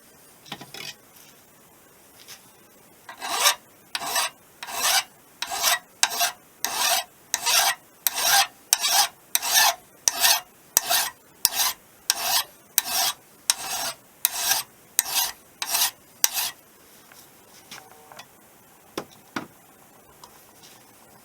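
A hand file worked back and forth across a metal driveshaft part, with even rasping strokes about two a second that start a few seconds in and stop near the end. A few light knocks come before and after.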